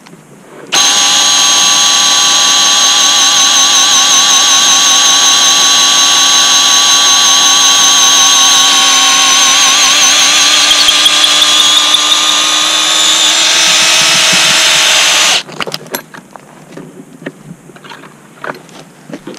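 Cordless drill running at full speed, boring a hole through a tree limb for cabling hardware: a steady, slightly wavering whine that starts about a second in and cuts off suddenly after about fifteen seconds, followed by a few light knocks.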